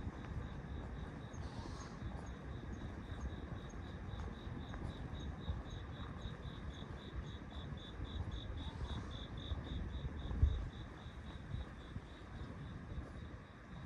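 A cricket chirping in an even rhythm, about four high chirps a second, over a low steady rumble. One dull thump comes about ten seconds in.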